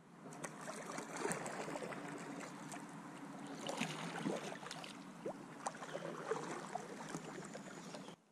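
Water sloshing and splashing against a kayak's hull close to the microphone, with many small knocks and clicks mixed in. It starts suddenly and cuts off suddenly near the end.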